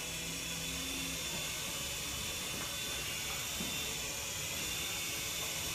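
Small toy remote-control helicopter in flight, its electric motor and rotor giving a steady high-pitched whine.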